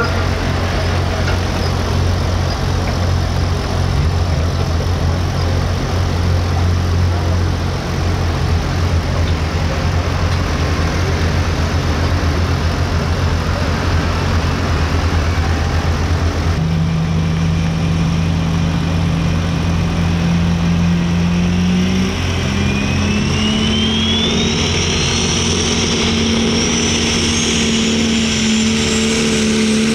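Turbocharged diesel engine of a pro stock pulling tractor running hard and loud under load. About halfway through, the engine note steps higher, and a high turbo whistle climbs steadily in pitch toward the end.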